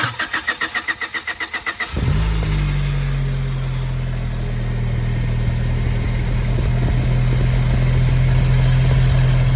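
1995 Honda Civic's four-cylinder engine cranked by the starter in even pulses for about two seconds, then catching and settling into a steady idle.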